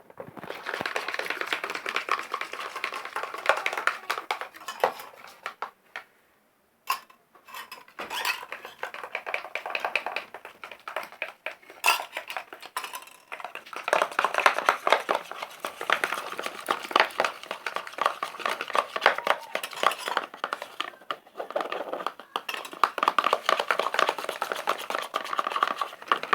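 Spoon stirring thickening slime in a pot, with fast repeated scraping and clicking of the spoon against the pot's sides and a brief pause about six seconds in. The mixture is taking up the activator and beginning to firm.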